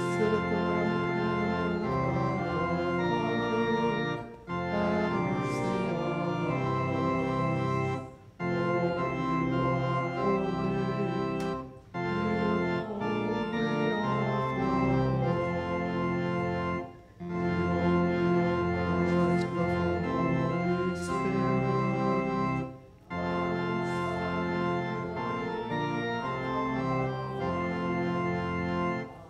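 Church organ playing sustained chords phrase by phrase, with short breaks between phrases, as in a hymn or liturgical song accompaniment.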